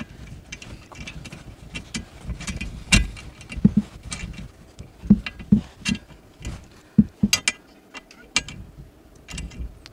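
Irregular small metal clicks and knocks, with a few louder knocks, as a bolt and hex key are worked at the lower mount of a new gas strut on a Maggiolina AirTop roof tent's steel lift arm, with hand-handling rumble.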